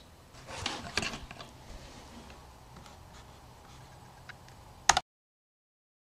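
Faint room tone with a few small ticks and a short sharp click about five seconds in, after which the sound cuts out to complete silence.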